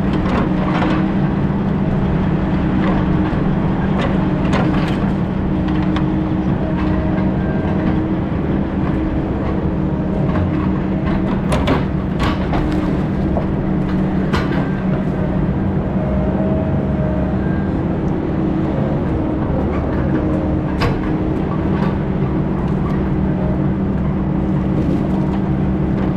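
Heavy diesel engine of logging machinery running steadily, with scattered short knocks and clanks.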